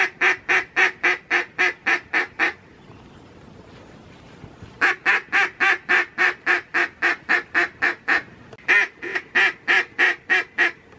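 Duck call blown in three runs of loud, evenly spaced quacks, about four or five a second, with short gaps between runs.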